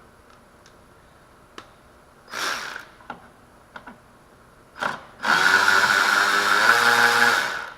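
Snap-on CTR 714 cordless battery ratchet running in short trigger bursts with a steady motor whine: a brief half-second run, a click, then a longer run of about two and a half seconds.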